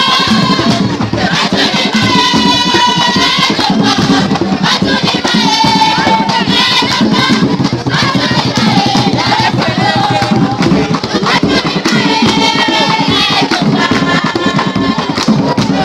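Traditional Ghanaian dance music: group singing in held, bending phrases that come back every couple of seconds over continuous drumming.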